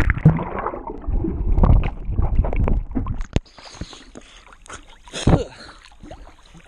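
River water splashing and sloshing around a waterproof camera as it is taken under the surface, with knocks of handling. About three and a half seconds in, the sound drops suddenly and turns quieter and thinner.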